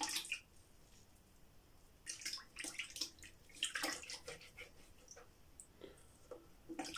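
Water splashing in several short, scattered bursts.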